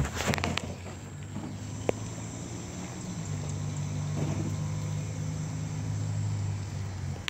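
Electric drivetrain of a Vaterra Ascender 1/10-scale RC crawler humming steadily under load as it climbs steep rocks, louder from about three seconds in and stopping near the end. Tyres and chassis knock on the stones in the first half-second, and once sharply about two seconds in.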